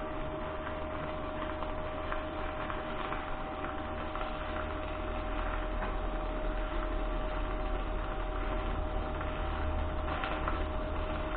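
Electric arc welding on a steel rock drill auger head: a steady crackling hiss, with a steady high whine and a low hum underneath that grows stronger partway through.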